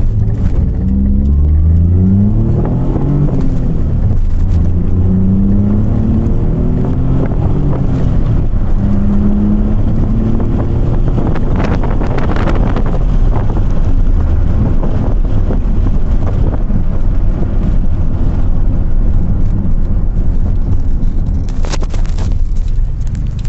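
Daihatsu Charade GTti's turbocharged 1.0-litre three-cylinder engine on its stock exhaust, running under load. Its pitch rises and drops several times over the first ten seconds, as with revving through gears, then it settles into a steady, dense, rough running sound.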